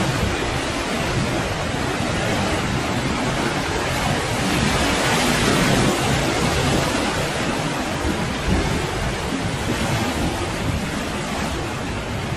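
Typhoon storm noise: wind and surf, a steady dense rush with no let-up.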